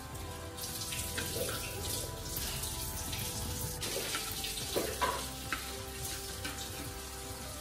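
Butter sizzling as it melts in a hot aluminium wok, with a spatula scraping and tapping against the pan a few times, the loudest about five seconds in.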